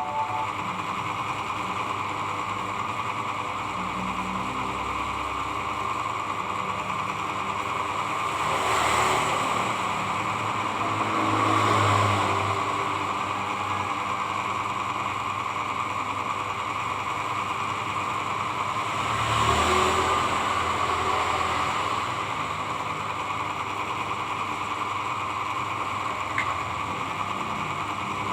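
A steady mechanical hum like a small machine running, which swells louder with a rougher, rasping edge twice: from about eight to twelve seconds in, and again around twenty seconds in.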